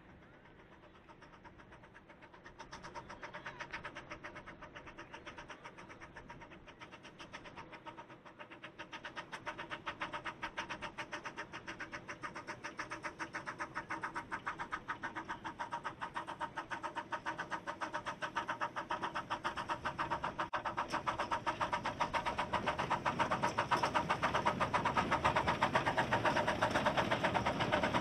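Miniature-gauge steam tank locomotive hauling a passenger train, its exhaust beating in a rapid, even rhythm. It grows steadily louder as the train approaches.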